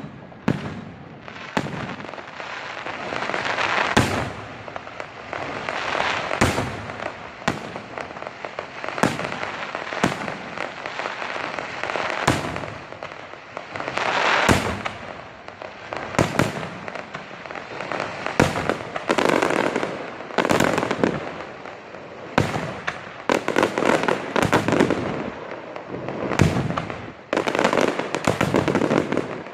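Fireworks display: aerial shells bursting with sharp bangs, about one every second or two, over continuous crackling.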